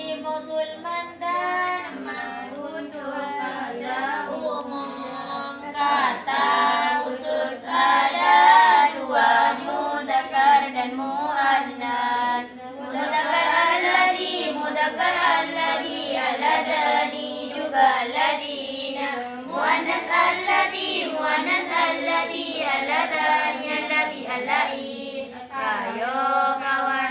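Several girls chanting together in a sung melody, a group recitation that runs on without a break.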